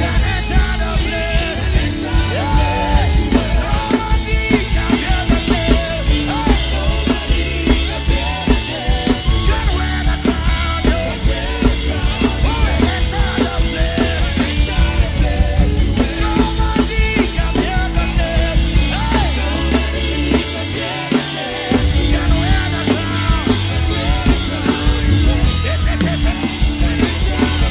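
Live band music led by a drum kit played hard and busy: rapid snare, tom and bass-drum strokes with cymbals, heard up close at the kit. The deep bass drops away for a moment about twenty seconds in.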